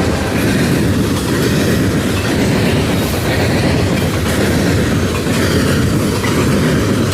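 Train rolling past: a loud, steady rumble of wheels on the rails with a clickety-clack.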